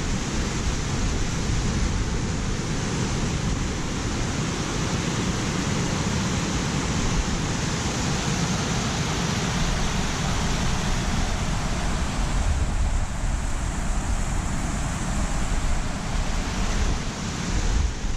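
A mountain creek cascading over rocks: a steady rush of white water, with wind buffeting the microphone in uneven low rumbles.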